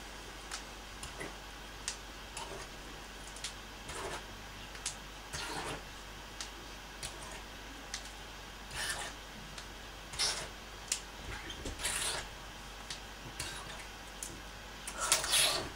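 Small plastic hair clips being snapped into hair one after another in a hurry: irregular sharp clicks mixed with short rustles of hair, the longest and loudest rustle near the end.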